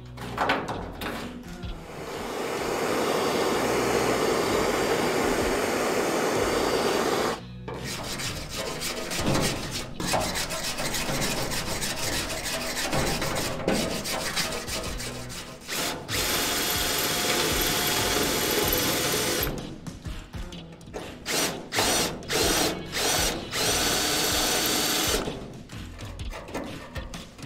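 Power tools working on a rusty car body's tail panel: a tool runs steadily for several seconds at a time, the later stretch with a thin high whine, then starts and stops in a string of short bursts.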